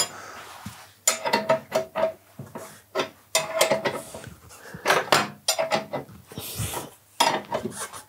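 Metal hand tools and motorcycle front-wheel parts clinking and knocking: a string of sharp, irregular metallic strikes, many with a short ring, as the front axle is worked into place.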